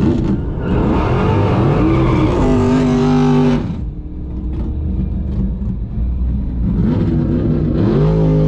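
Drag-racing V8 engine revving hard for about three seconds with a loud rush, then cutting back to a rumbling idle. Near the end it revs up quickly and holds a steady higher note.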